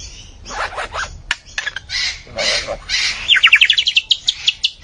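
A mimicking songbird singing a varied song: rough chattering calls, then a fast run of short, falling whistled notes through the second half.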